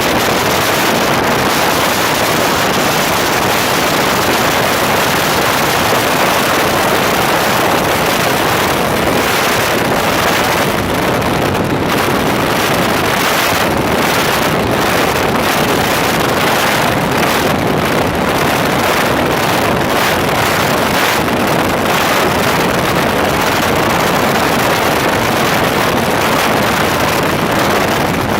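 Donzi speedboat running at speed: a steady, loud rush of engine, hull-on-water and wind noise buffeting the microphone.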